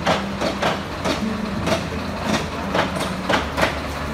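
A rough-terrain crane's engine running steadily, with a string of sharp metallic knocks at uneven intervals, about two or three a second.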